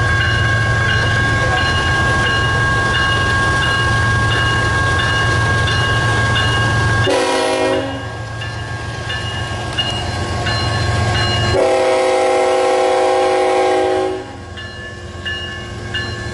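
Railroad crossing bell ringing steadily over the low rumble of a CN freight train's diesel locomotives. Near the middle the lead locomotive's air horn gives a short blast, and a few seconds later a longer one of about two and a half seconds.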